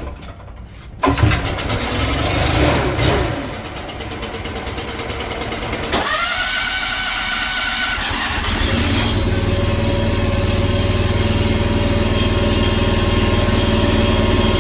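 Small gasoline engine on lawn-care equipment cold-starting: it catches about a second in, revs up and drops back, changes abruptly about six seconds in, then settles into a steady run.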